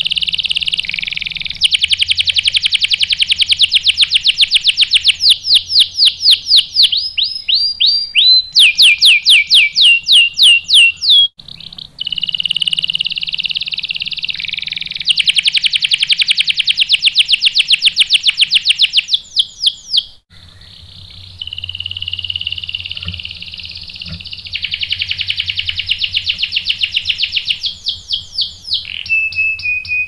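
Domestic canary singing long rolling songs: three extended phrases of rapid trills, each giving way to slower, separate down-swept notes, with short breaks between phrases.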